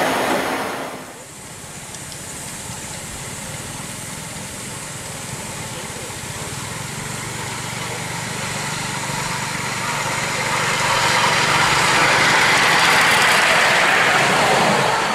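A 5-inch-gauge model Southern Railway Class L1 4-4-0 miniature train running on its track with riders aboard. Its sound drops about a second in, then grows steadily louder as the train draws near.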